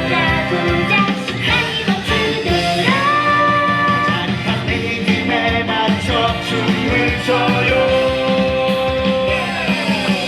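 An upbeat show song: a voice sings with several long held notes over a driving band backing track.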